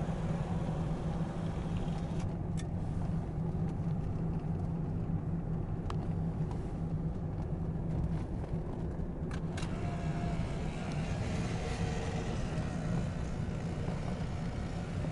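Rolls-Royce Phantom VI under way, heard from inside its rear cabin: a steady low hum of the V8 engine mixed with road noise. A few faint clicks come through along the way.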